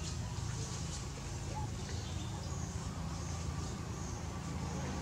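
A steady, low engine-like hum with faint outdoor ambience.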